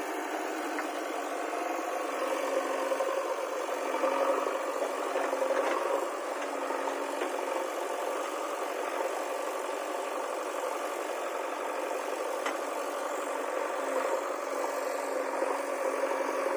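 JCB backhoe loader's diesel engine running steadily as the machine creeps forward over dug earth, a little louder a few seconds in.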